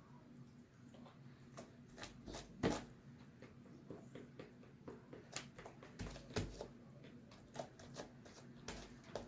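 Light, irregular clicks, taps and rustles of hands handling things on a table, with a couple of louder knocks about 2.7 and 6.4 seconds in.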